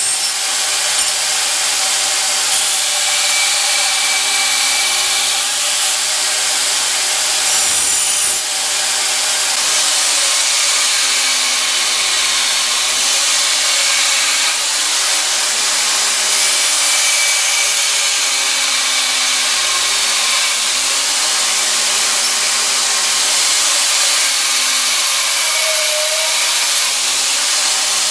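2x72 belt grinder, driven by a 3 hp three-phase motor, grinding steel: a continuous, loud abrasive hiss of the belt biting the metal over the motor and belt running at high speed.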